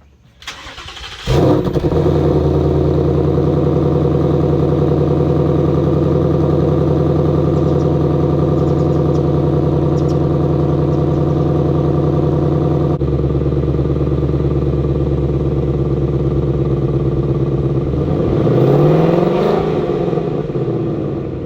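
2020 Ford Mustang GT's 5.0-litre V8, through its stock active exhaust set to quiet mode, cranking and firing about a second in. It flares, then settles into a steady fast idle. Near the end it is revved once, up and back down, and the sound then falls away.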